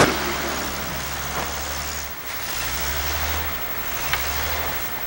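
Small hatchback car's engine running as it drives and slides through snow, the engine note dipping about two seconds in and then picking up again, over a steady hiss.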